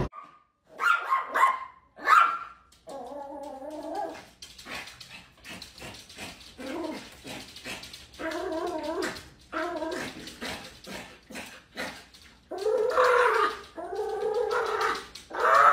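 Small white dog vocalizing at a glass door: a string of short pitched barks and cries, the calls growing longer and louder near the end.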